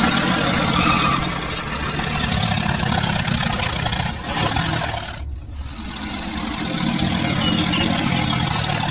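Engine running steadily with a low rumble and a dense noisy top, briefly dropping away about five seconds in before resuming.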